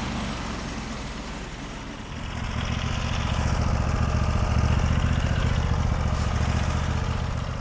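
A small engine running steadily at low revs; it eases off slightly, then picks up and runs louder from about two seconds in.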